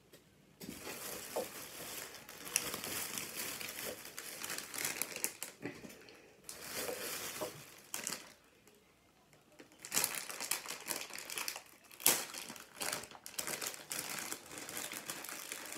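Crinkly plastic snack wrapper being handled and opened, rustling and crackling in several stretches, with a lull about eight seconds in and a few sharp crackles after it.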